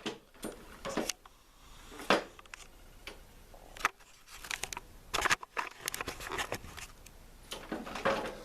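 The faulty wheel of a push mower being turned and worked: irregular clicks and knocks, with a quick run of rattling clicks about five to six seconds in.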